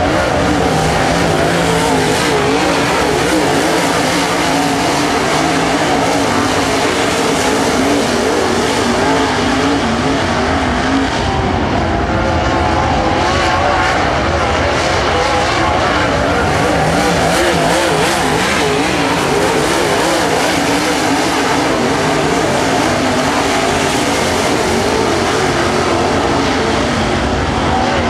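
Dirt super late model race cars' V8 engines running hard around the oval, loud and continuous, the engine note rising and falling as the cars go through the turns and down the straights.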